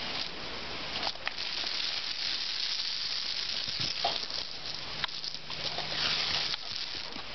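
Garden hose spraying a jet of water that hisses steadily and patters onto paving, with a few short splashes as the dog bites at the stream.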